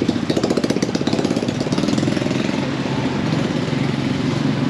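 Small engine running close by: a rapid, steady chugging for about the first two seconds that settles into a smoother steady hum.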